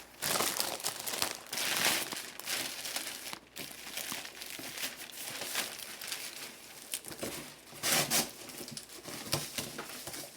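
Packaging crinkling and tearing as it is handled and opened, in irregular bursts, loudest in the first two seconds and again about eight seconds in.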